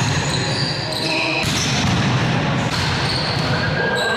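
Volleyball practice in a sports hall: balls being struck and bouncing, short high squeaks, and players' voices over a steady hall din.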